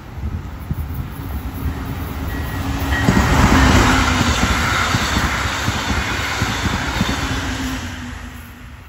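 Brightline passenger train, hauled by a Siemens Charger locomotive, passing at speed. The rushing rumble of wheels and air builds to a peak about three and a half seconds in as the locomotive and coaches go by, then fades as the train moves away.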